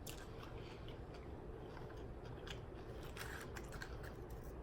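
Faint chewing while eating Rotel dip, with a few scattered short clicks.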